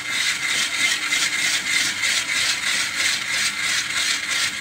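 Hand-cranked ice shaver shaving a block of ice: the blade scraping the ice in a loud, rapid, pulsing rasp as the wheel is turned.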